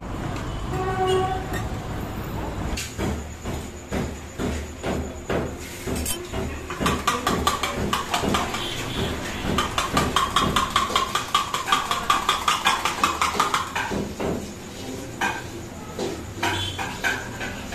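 A spoon beating eggs in a steel tumbler: quick, even metallic clinks, about five a second, that grow faster and more ringing in the middle and stop a few seconds before the end. Street noise with a brief pitched tone comes first.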